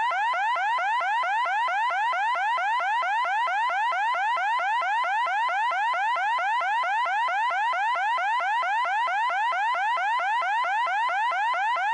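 Electronic alarm sounding continuously: a loud, high-pitched tone that sweeps rapidly upward over and over, about five rising chirps a second, without change.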